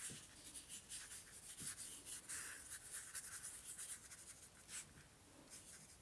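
Paintbrush bristles dabbing and scrubbing paint onto gesso-coated paper: a run of faint, quick scratchy strokes that thin out near the end.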